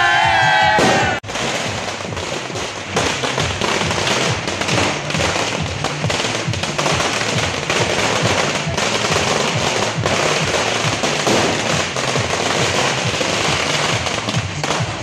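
A group of people cheering and shouting, cut off about a second in. Then firecrackers go off in a long run of rapid, uneven, sharp bangs.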